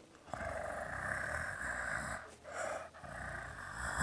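A person making a steady, breathy motor noise with the mouth, as the sound effect for an approaching vehicle. It breaks off briefly twice, as if for breath, about two and three seconds in.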